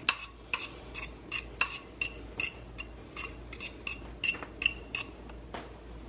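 A metal utensil repeatedly clinking against a cooking pot while food is stirred or sauce is scraped in, about three ringing strikes a second, which stop shortly before the end.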